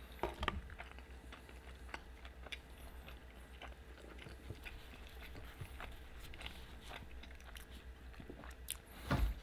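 A man chewing a mouthful of burrito with his mouth closed, close to the microphone: faint, irregular mouth clicks and smacks.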